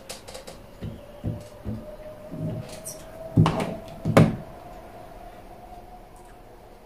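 Handling knocks: several light knocks, then two louder knocks a little under a second apart, over a faint steady tone.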